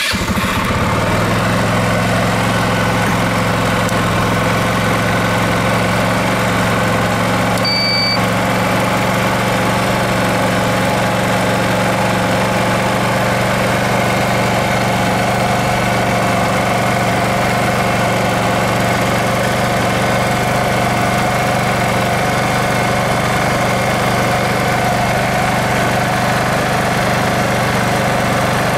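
Motorcycle engine starting and settling straight into a steady idle, running as a generator to keep the battery charged for a power inverter. A short electronic beep sounds about eight seconds in.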